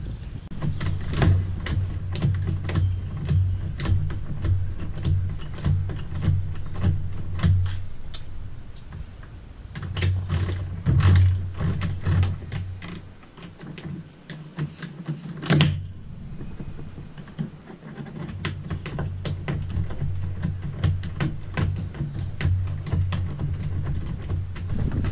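Ratchet wrench clicking in steady repeated strokes as bolts on an outrigger mounting base are tightened, with a low thud under each stroke. The clicking pauses briefly twice, once about halfway through, with a single sharper click, and then goes on.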